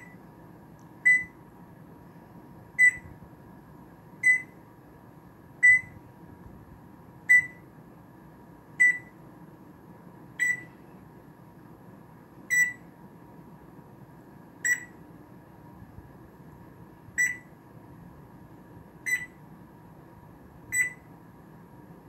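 African grey parrot mimicking an electronic alarm beep: about a dozen short, high beeps, one every one and a half to two and a half seconds, the gaps slowly lengthening.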